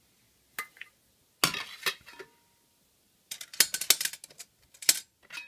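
Aluminium Trangia cook-set parts knocking and clinking against each other as they are handled, a few separate knocks with a brief ring, then a quick run of clinks about three and a half seconds in.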